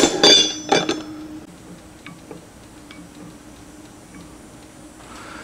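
Metal clinks with a ringing tone in the first second as a steel wrench is set down on the Dodge 8¾ differential, then a few faint ticks as the ring gear is rocked against the pinion to read the backlash.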